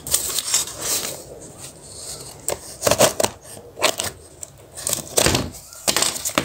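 Hands and scissors working at a small cardboard parcel: a string of irregular clicks and knocks, with one heavier thump about five seconds in.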